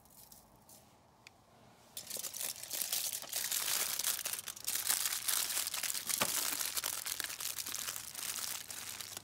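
Aluminium foil crinkling and crackling as it is folded over and crimped shut by hand into a cooking packet, starting about two seconds in.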